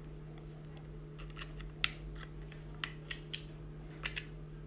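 Scattered light clicks and ticks of a small tool working the voltage adjustment screw on a live electric-scooter charger's circuit board, over a steady low hum.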